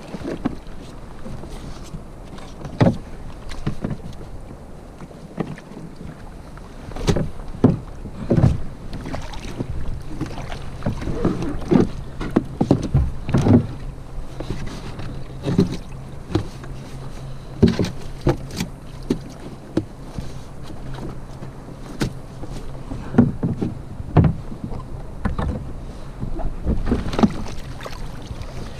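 Sea water slapping against a plastic sit-on-top kayak hull, with irregular knocks and splashes from the paddle and from moving about on the boat.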